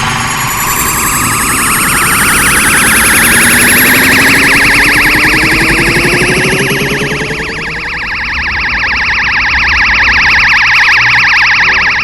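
Kamehameha energy-beam sound effect from Dragon Ball: a loud, fast-warbling whine that rises in pitch over the first several seconds and then holds steady.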